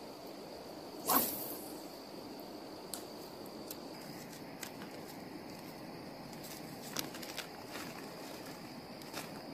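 Clear plastic bag crinkling as it is handled and tinder is taken out of it. There is one sharp rustle about a second in and scattered lighter crinkles after it, over a steady high tone.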